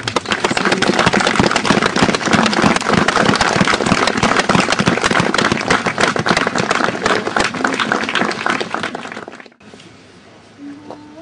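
Crowd applauding, a dense patter of many hands clapping that cuts off suddenly about nine and a half seconds in. Just before the end a woman begins to sing.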